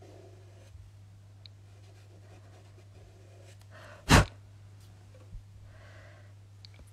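One short, loud burst of breath about four seconds in, after a brief faint intake, over a faint steady hum.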